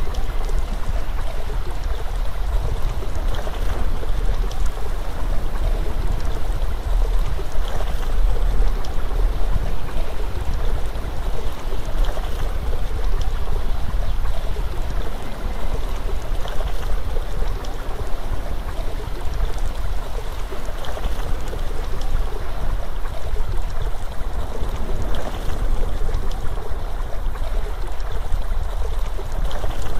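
Steady rushing water noise, like a flowing stream, with a deep rumble underneath.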